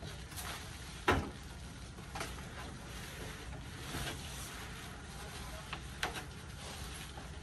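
Scattered knocks and taps from plastering work on a scaffold, a few sharp ones with the loudest about a second in, over a steady low background hum.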